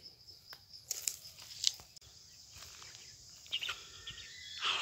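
Steady high insect buzz, with a few short, sharp sounds about one second and 1.7 seconds in.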